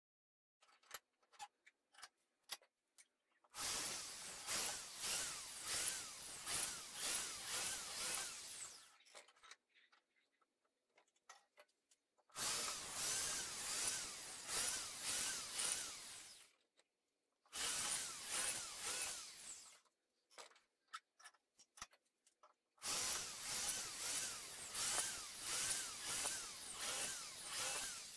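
Power drill boring holes through a steel tube, the perforated inner core of a motorcycle exhaust silencer. There are four runs of several seconds each, with clicks and knocks from handling between them.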